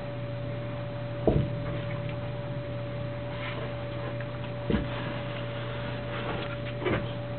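A knife and its leather sheath being handled, giving three short knocks and a few fainter clicks, over a steady hum.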